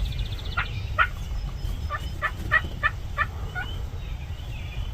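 Wild turkeys calling: a run of short, clipped notes, about three a second, over a steady low rumble.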